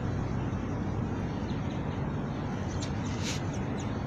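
Steady low outdoor rumble, with a quick run of high, thin bird chirps about three seconds in.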